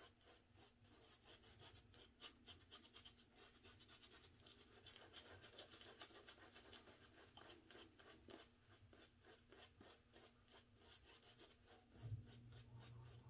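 Faint, quick scratchy strokes of a Razor Rock badger-hair shaving brush working lather onto the face and beard.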